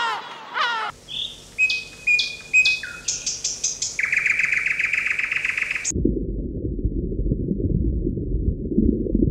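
Gull calls, two falling cries about half a second apart, then short bird chirps and a buzzy trill. About six seconds in, these give way to a low, steady rumbling noise.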